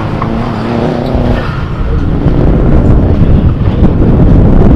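Car engine running hard, pulling with a steady note at first and growing louder and rougher from about two seconds in.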